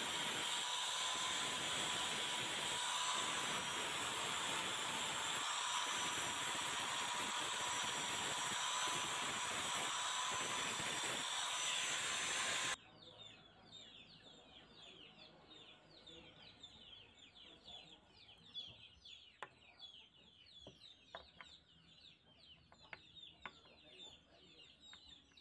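Angle grinder running steadily with a high whine, its disc grinding rust off steel locking pliers, then cutting off suddenly about halfway through. After it stops, birds call in the background, with a few light clicks.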